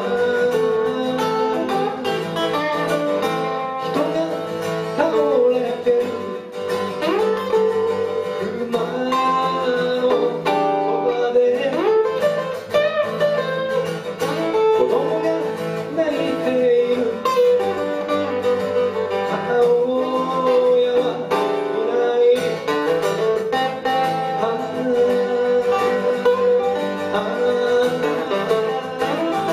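Live band performing a song: amplified guitars with a man singing the melody over them.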